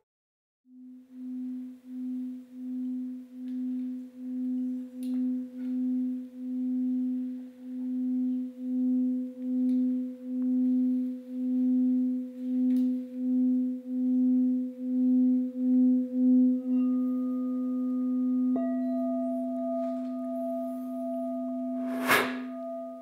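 A singing bowl sounding a sustained low tone that swells and fades in a steady pulse, about one and a half times a second. About two-thirds of the way in, a second, higher tone joins it, and a sharp strike rings out near the end.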